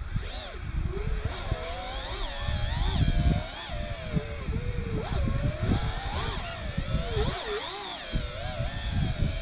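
FPV racing quadcopter's brushless motors whining, the pitch rising and falling continually with the throttle during freestyle flying, over a low rumble.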